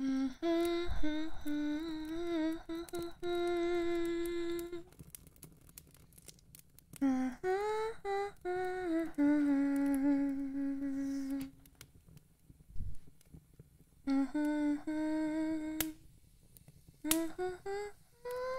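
A woman humming a slow tune with long held notes, in four phrases separated by short pauses, with a few faint clicks in the gaps.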